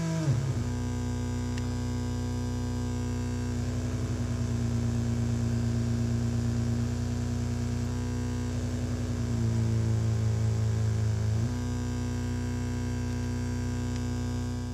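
Future Sound Systems Brunswick DIY synthesizer droning a low, buzzy tone rich in overtones. Its pitch drops sharply just after the start, then holds, with wavering, rough stretches and a louder patch in the middle as components on its circuit board are touched by hand.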